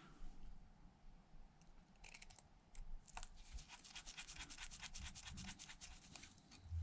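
Precision pentalobe screwdriver driving the bottom pentalobe screws back into an iPhone 11 Pro Max: faint fine scratching and a quick run of tiny clicks, starting about two seconds in.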